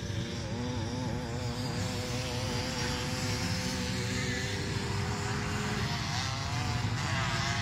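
Motocross motorcycle engines running around a dirt track, heard at a distance as a continuous drone whose pitch wavers up and down as the riders work the throttle.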